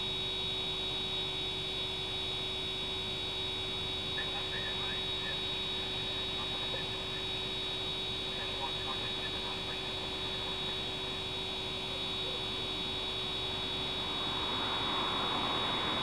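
Steady electrical hum with a high, thin whine over it, holding at one pitch. A rushing noise builds near the end.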